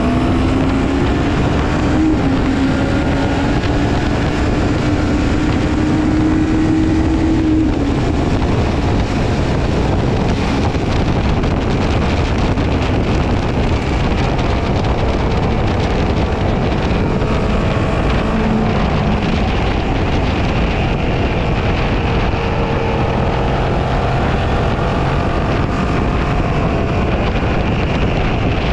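Honda CB500 parallel-twin motorcycle at speed on a race circuit, recorded onboard: the engine note rises under acceleration for the first seven seconds or so, then eases off about eight seconds in. Heavy wind noise on the microphone runs under it.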